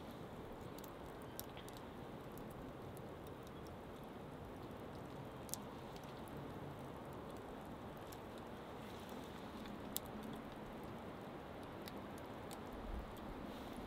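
Small wood campfire burning, with faint crackling and a few sharp pops at irregular intervals, the clearest about five and a half and ten seconds in.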